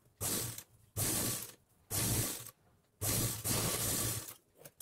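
Sewing machine stitching a seam in four short runs, the last one longer.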